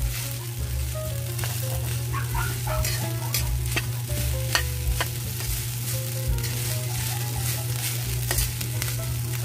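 Fried rice sizzling in oil in a wok while a spatula stirs and scrapes it, with irregular sharp clacks of the spatula against the wok. A steady low hum runs underneath.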